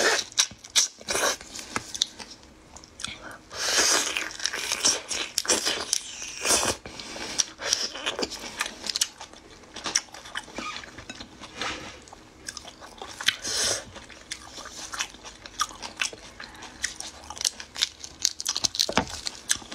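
Close-up eating sounds of whole shrimp marinated in spicy sauce: irregular biting, crunching and chewing, in many short clicks with a few longer, denser stretches.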